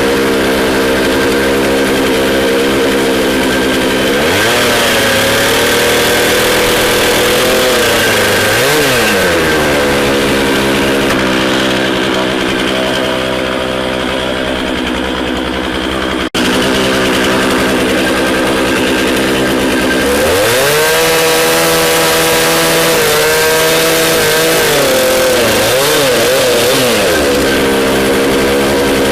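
Gas chainsaw running throughout, bogging down in pitch and picking back up several times as it cuts through firewood logs.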